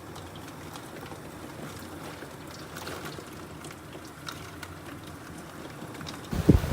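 Steady low rushing of hurricane rain and wind, with a few faint clicks. Near the end loud gusts of wind start buffeting the microphone.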